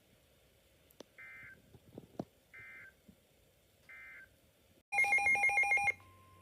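Three short, faint bursts of the Emergency Alert System's digital data tones, about 1.4 s apart, the end-of-message code after a weather warning. They are followed near the end by a loud electronic alert beep that pulses rapidly for about a second, then a faint steady tone.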